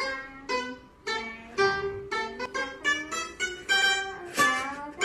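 A Chinese plucked lute of the pipa family playing a melody of single plucked notes, a few a second, each ringing and then fading.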